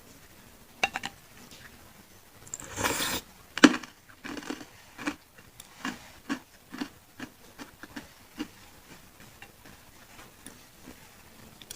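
Close-miked mouth sounds of eating meatballs in chili sauce: a couple of clicks, a bite, then chewing at about two chews a second that fades out.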